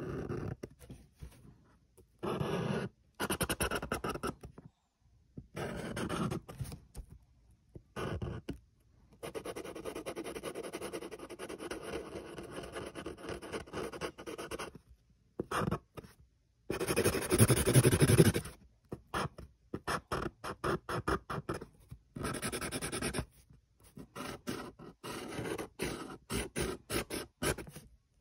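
Black Sharpie permanent marker scribbling on paper: repeated bursts of back-and-forth strokes with short pauses between them. There is a longer unbroken run of scribbling about a third of the way in, and quick short strokes near the end.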